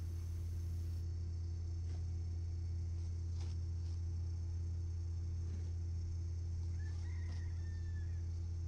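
A steady low hum throughout, with faint crackles from self-adhesive vet wrap being pulled off the roll and wound around a cow's hoof. A short high-pitched call comes about seven seconds in.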